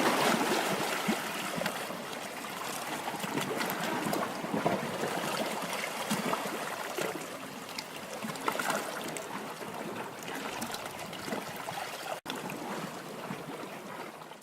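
Sea water splashing and trickling around a sailing boat under way, with many small splashes and a brief drop-out about twelve seconds in.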